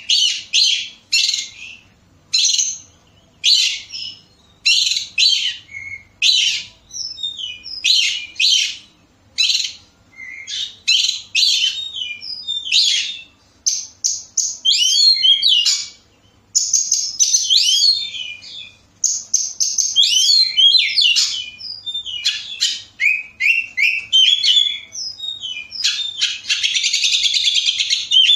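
Oriental magpie-robin (kacer) singing loudly. It starts with a string of short whistled phrases, each a fraction of a second long, and from about halfway moves into a near-continuous run of varied warbles and slurred notes. A harsh, buzzy phrase comes near the end.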